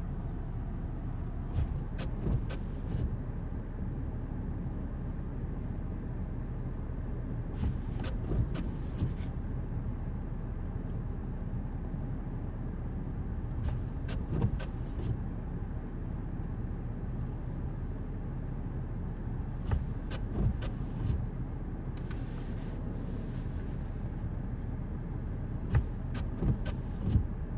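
Motor vehicle engine idling steadily, with a few brief clicks and knocks scattered through.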